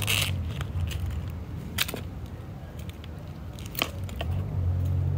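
Dry dead leaves being pulled off succulents by hand, giving a few sharp crackles and snaps, over a low steady hum.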